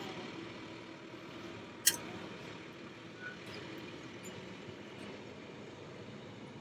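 Steady car running noise, an engine and road hum heard from inside the cabin while driving, with one short sharp click about two seconds in.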